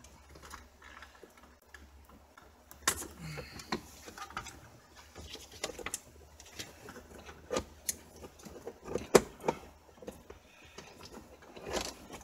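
Scattered clicks and knocks of a car's heater control unit and its wiring plugs being handled and worked loose from the dashboard, a handful of sharper knocks among lighter ticks.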